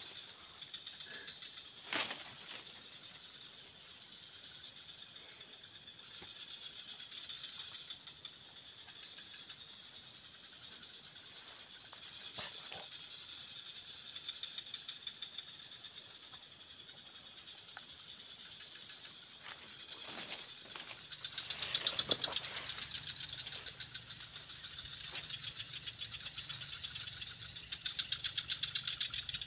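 Steady high drone of tropical insects, with a few rustles and cracks of dry leaves and brush underfoot, the loudest about two-thirds of the way in. Near the end the insects break into a fast pulsing chirp.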